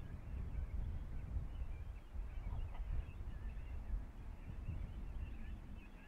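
Outdoor ambience of wind gusting on the microphone as an uneven low rumble, with many faint, short bird chirps scattered through it.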